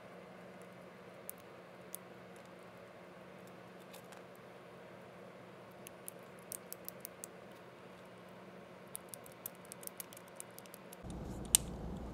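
Plastic cable drag chain being closed by hand over a cable: scattered small sharp clicks as the link covers snap shut, in a quick run about six and a half seconds in and another about nine seconds in, with one louder click near the end, over a faint low hum.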